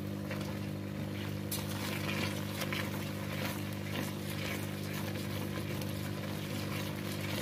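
A spatula stirring thick raw mango chutney simmering in a steel pan, with scattered scrapes and taps against the metal over a steady low hum.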